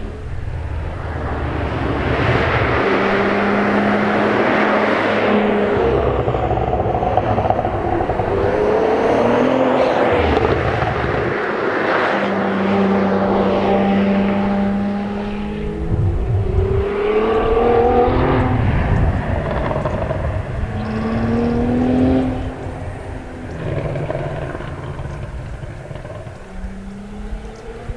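Cadillac CT4-V Blackwing's 3.6-liter twin-turbo V6 driven hard, its pitch climbing and dropping again and again through gear changes and lifts. It grows quieter in the last few seconds.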